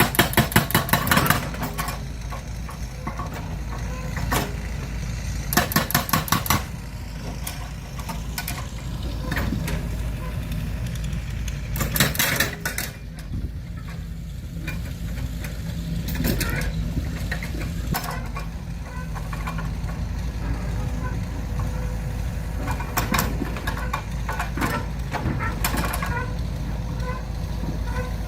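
A steady low motor drone, broken by short runs of rapid, evenly spaced clattering: about a second long at the start, again about six seconds in and twelve seconds in, and briefer ones later.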